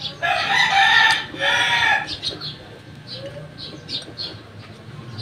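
A rooster crows once, loud, for about two seconds, with a short break in the middle of the call.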